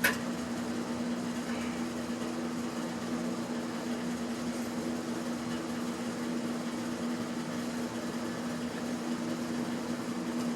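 A steady mechanical hum with a constant low tone, unchanging throughout. A single light metallic clink right at the start.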